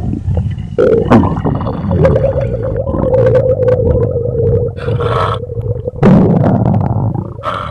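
Bloated, overfull human stomach growling and gurgling: a low rumble throughout, with a long growl held at a steady pitch for several seconds in the middle. Sudden louder gurgles break in about a second in and again near the end.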